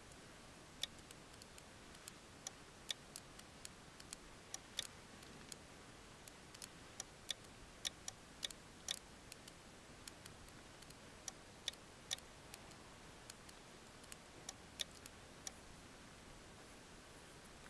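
Light, sharp clicks of a Morse key paddle being tapped in the uneven rhythm of sent CW, stopping near the end.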